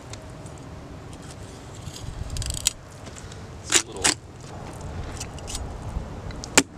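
Chef's knife filleting a lingcod on a wooden table: the blade scraping along the fish's flesh and bones, with two sharp clicks about four seconds in and another near the end.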